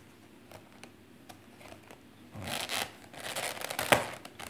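Thin clear plastic lid being pressed down onto a plastic tub: crackling plastic that ends in a sharp snap about four seconds in as the lid clicks shut.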